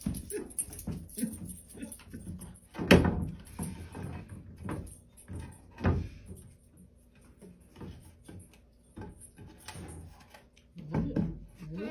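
A wooden board knocking and scraping against the deck boards and the sliding-door frame as a dog tries to carry it through the doorway, with a run of light taps and two louder thumps, about 3 and 6 seconds in.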